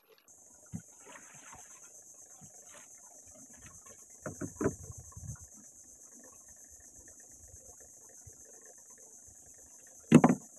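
A steady, high-pitched drone of insects in the mangroves, with scattered knocks and bumps from gear being handled in a small wooden boat, the loudest a single thump near the end.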